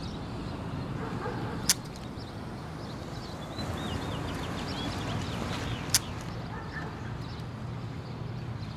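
Outdoor backyard ambience: a steady low rumble of background noise, with two sharp knocks about four seconds apart and a bird chirping briefly in the middle.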